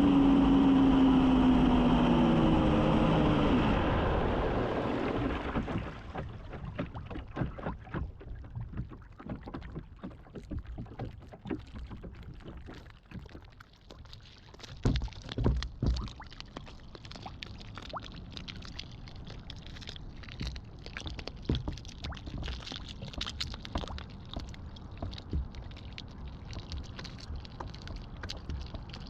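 Onboard a 6S-powered RC catamaran: the whine of its electric drive falls in pitch and fades over the first few seconds as the boat slows. It then sits on choppy water with irregular slaps, splashes and knocks against the hull.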